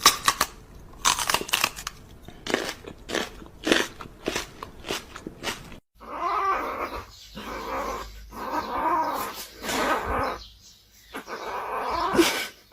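A dog crunching and chewing on something hard, a run of sharp separate crunches. Then a dog vocalizing in long wavering calls, rising and falling in pitch, broken by short pauses.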